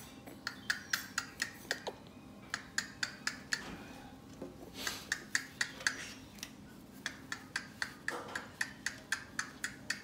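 Amazon parrot making rapid sharp clicks, about four a second, in several runs with short pauses.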